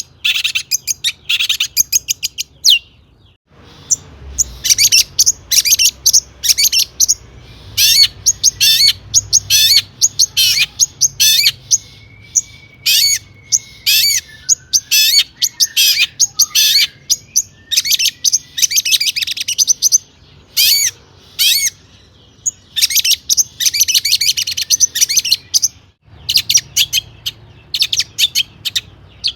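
Long-tailed shrike (cendet) singing a loud, varied song full of mimicked phrases: fast runs of harsh, scratchy repeated notes broken by short pauses, with a brief break about three and a half seconds in.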